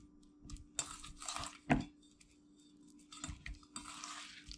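Wet squishing and squelching as a hand turns small bangamary fish in a thick seasoning-and-flour paste in a stainless steel bowl, in two bouts with small clicks. There is a sharp knock between them.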